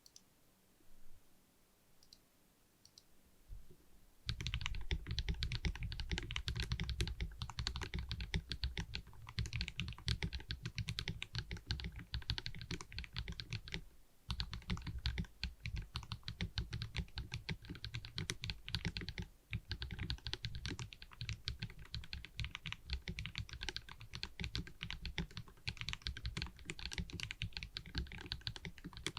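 Custom mechanical keyboard with lubed KTT Peach linear switches on 62 g springs, PBT Cherry-profile keycaps and an acrylic gasket-mount case, being typed on. A few single keystrokes, then fast continuous typing from about four seconds in, with two brief pauses in the middle.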